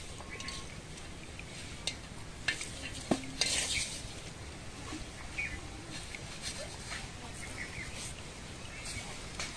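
Light clinks and taps of a steel bowl and rustling of a collapsible mesh umbrella fish trap as it is baited by hand. The sharpest clicks come about two to four seconds in, over a steady hiss.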